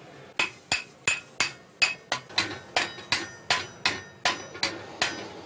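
Blacksmith's hammer striking iron at a steady pace, about three blows a second, each blow ringing briefly.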